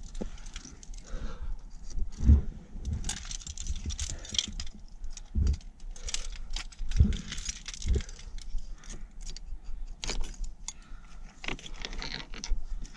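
Trad climbing rack of metal carabiners and nuts on a harness jangling and clinking as the climber moves and places protection, with irregular sharp clinks and a few dull knocks.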